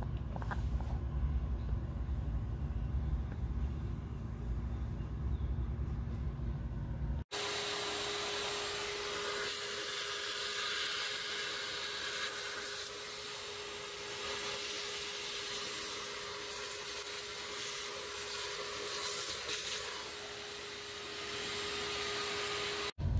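A low rumble for the first seven seconds or so, then a shop vac runs steadily with a hiss and a steady whine, its nozzle inside the open differential housing sucking out the metal chips left from drilling and tapping.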